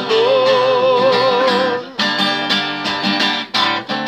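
Male voices hold a sung note with vibrato over a strummed acoustic guitar. About halfway through the singing stops and the acoustic guitar strums on alone in a steady rhythm.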